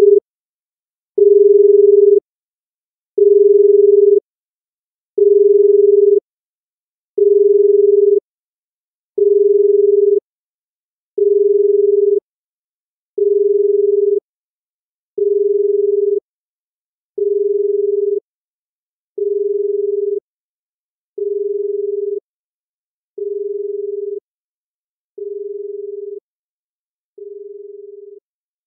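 An isochronic tone for brainwave entrainment: a single steady electronic tone pulsing on and off, about one second on and one second off, each pulse quieter than the one before until it fades away near the end.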